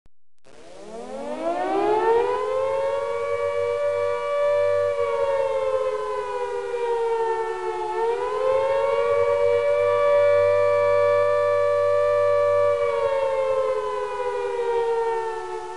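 Air-raid siren winding up from a low pitch to a steady wail over the first two seconds, two close pitches sounding together. It dips and climbs back about eight seconds in, then begins to wind down near the end.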